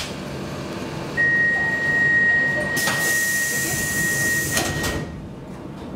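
A steady, high door-closing warning tone sounds on the Stockholm Metro C14 train from about a second in. While it holds, the car's sliding doors close with a hiss of air and end with a couple of knocks as they shut, near where the tone stops.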